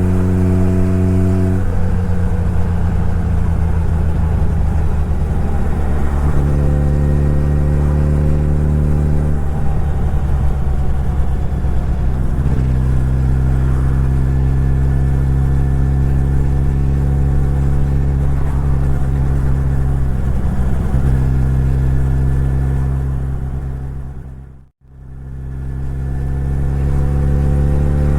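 Suzuki Hayabusa's inline-four engine running under way, its steady note stepping up and down several times with throttle and gear changes. It fades out to silence about 25 seconds in, then fades back in.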